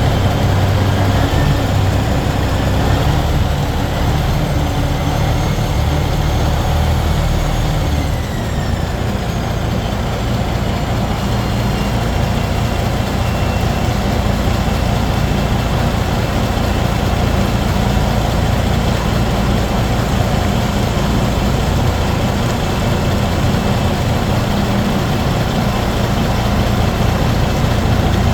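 A motor vehicle running steadily and loudly, with a deep hum and a whine that falls in pitch about eight seconds in.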